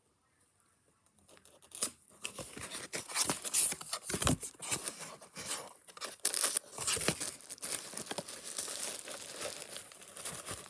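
Packaging being torn open and crinkled while a fire alarm is unboxed. It starts about two seconds in as dense crackling, with a dull thump about four seconds in.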